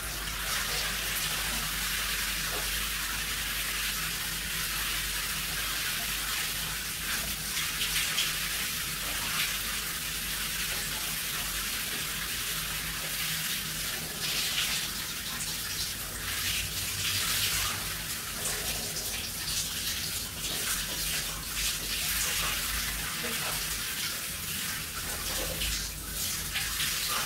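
Shower running: a steady spray of water splashing onto a person and the tiles and glass of a shower cubicle.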